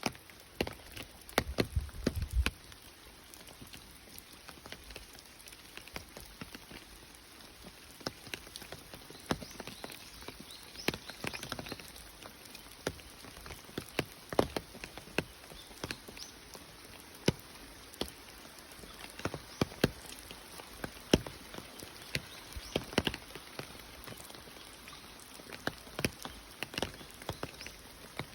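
Rain falling, with drops striking a surface close by in irregular sharp ticks over a soft steady hiss. A short low rumble comes about a second in.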